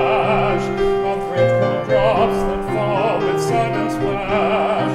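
A man singing a classical art song in an operatic style with a wide vibrato, over grand piano accompaniment.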